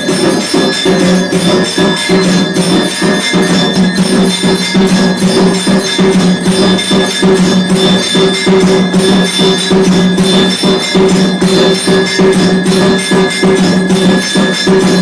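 Temple aarti music: bells and jingling metal percussion struck in a fast, steady rhythm over held tones that run through it without a break.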